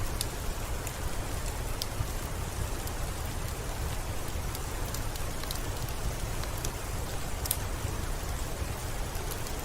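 Steady rain on a window mixed with a fireplace's scattered sharp crackles, over a deep, even rumble.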